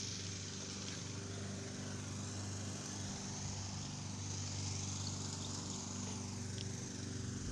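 A motor running steadily, giving an even low hum that holds one pitch throughout.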